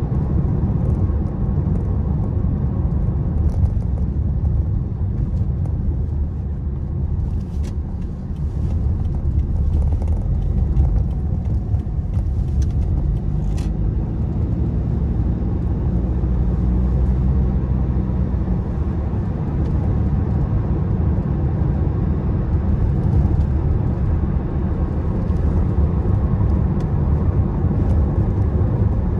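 Car cabin noise while driving: a steady low rumble of engine and tyres on the road, with a few faint clicks around the middle.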